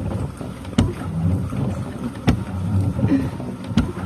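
Vehicle engine idling with a steady low hum, with a sharp click repeating evenly about every second and a half.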